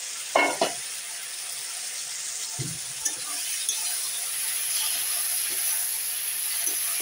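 Potatoes and tomato-spice masala sizzling in oil in a kadai while a metal spatula stirs and scrapes them: the water has cooked off and the oil is separating from the spices. A metal clank about half a second in, and a dull knock a little after two and a half seconds.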